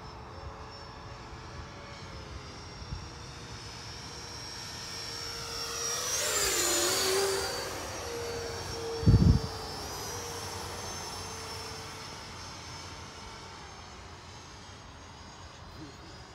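Radio-controlled model jets' turbine engines whining overhead; one passes close about six seconds in, its pitch dropping as it goes by. A short low thump about nine seconds in.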